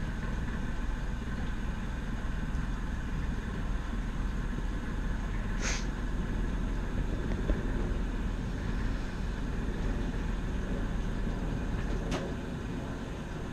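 A tour boat's motor running steadily as a low drone. There is a short high squeak about halfway through and a click near the end, after which the motor runs a little quieter.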